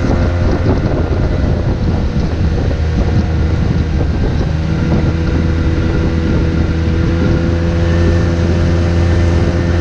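Outboard motor of a small flat-bottomed boat running steadily at speed. Water rushes past the hull and wind buffets the microphone.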